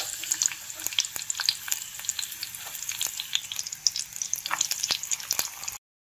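Garlic cloves frying in hot sesame oil in an earthen clay pot: an even sizzle with dense, fast crackling pops. It breaks off briefly near the end.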